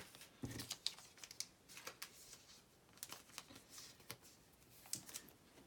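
Faint, scattered clicks and rustles of trading cards being handled.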